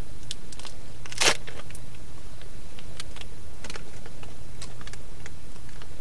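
Beef jerky being bitten out of its plastic vacuum-sealed pack and chewed: scattered small crinkles and crackles, the loudest about a second in, over a steady low hum.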